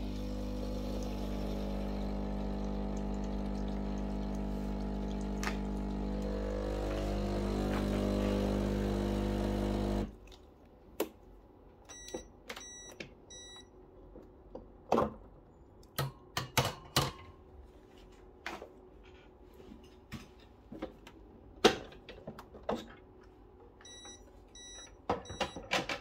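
Breville Barista Pro espresso machine running with a steady hum for about ten seconds, swelling slightly before it cuts off abruptly. After that come scattered clicks, knocks and short metallic rings from handling the portafilter and machine parts.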